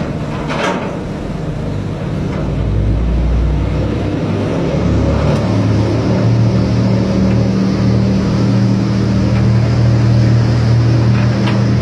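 A trawler's engine running steadily. It grows louder and stronger over the first few seconds, as if taking on load, then holds a steady drone. A short knock comes near the start and another near the end.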